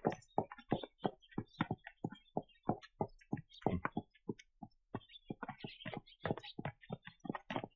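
Horse hooves clopping on hard ground: a quick, uneven run of sharp clops, about four or five a second.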